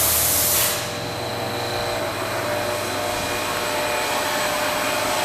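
Steady machine-shop background noise, a whirring hum with a few faint steady whining tones. A loud hiss fades out under a second in.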